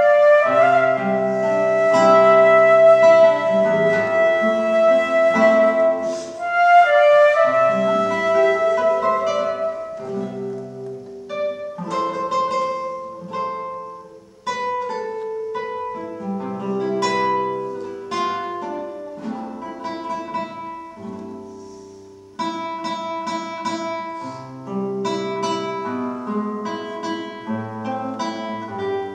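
Concert flute and nylon-string classical guitar playing a duet. The flute holds long melodic notes over the guitar's plucked accompaniment, then drops out about a third of the way in, and the guitar carries on alone with plucked notes and chords.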